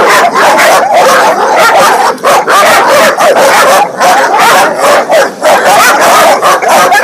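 Dogo Argentino dogs barking and yelping loudly and rapidly, calls following one another with hardly a break.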